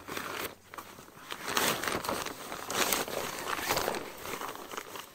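Fabric carrying bag rustling and crinkling in irregular bursts as it is worked down over a folded camping cot.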